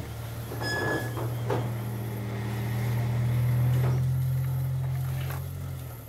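The electric ride-on pedal car's 24 V, 450 W motor and drive hum steadily as the car drives across a concrete floor. The sound grows louder as the car approaches, with a few short rushes of tyre and drive noise, and dies away near the end as it stops.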